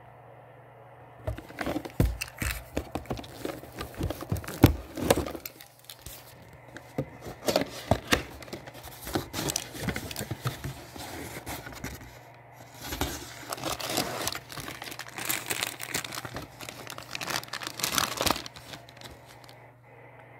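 Gauge packaging being opened by hand: crinkling and tearing in irregular bursts, starting about a second in and stopping just before the end, over a steady low hum.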